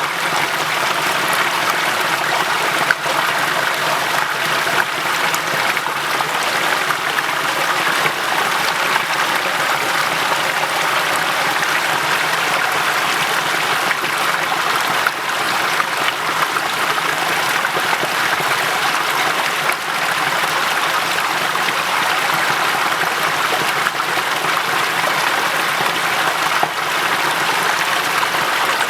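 Waterfall cascading, a steady rush of running water with no breaks.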